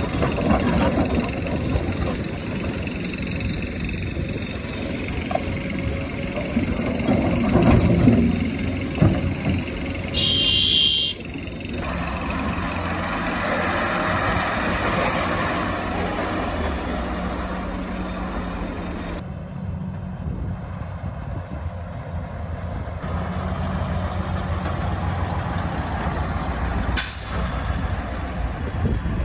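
Hydraulic excavator's diesel engine running steadily under load while the bucket scrapes and knocks against rock, with a rough grinding stretch early on, a short high squeal about ten seconds in, and a sharp crack near the end.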